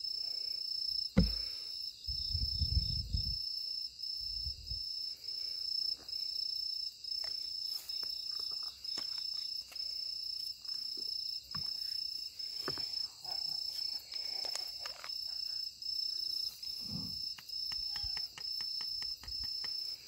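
Crickets chirping steadily, a high trill in short even pulses. A single knock comes about a second in, followed by a brief low rumble.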